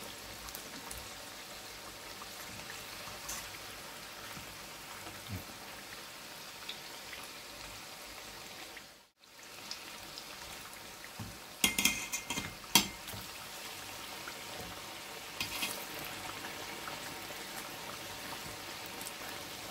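Breadfruit slices deep-frying in oil in a stainless steel pot, a steady sizzle that cuts out briefly just before halfway. After that come sharp metal clinks and taps as a fork turns the slices against the pot, in a cluster and then again twice.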